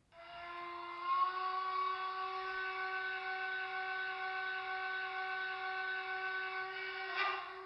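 The sound decoder of a Märklin H0 model of the class 498.1 Albatros steam locomotive is playing its deep horn: one long held tone that rises slightly in pitch about a second in, then wavers briefly and stops near the end.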